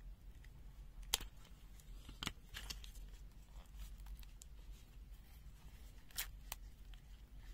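A handful of sharp, short clicks and light handling noise from a multimeter being handled, spread irregularly over a few seconds, over a faint steady low hum.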